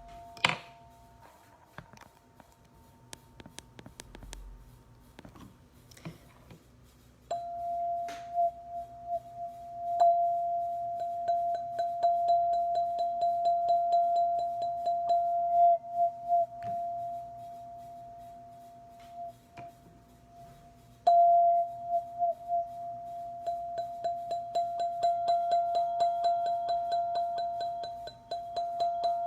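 Black ZenTube sound-healing instrument sounding one sustained ringing tone that swells with a slight wobble, over many small ticks. The first seconds hold only scattered soft taps. The tone comes in about seven seconds in, dies away, then sounds again abruptly about 21 seconds in.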